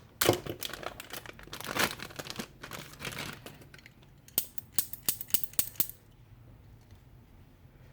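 Plastic packaging crinkling and rustling as it is handled. Then, between about four and six seconds in, comes a quick run of sharp small clicks and taps from handling the alloy model revolver.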